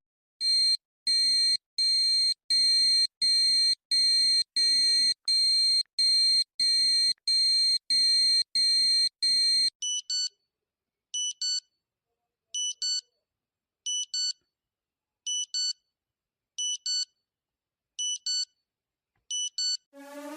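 Electronic alarm tone: a run of about fourteen loud beeps, roughly one and a half a second, with a warble under them. About halfway through it changes to short double beeps that repeat about every second and a half.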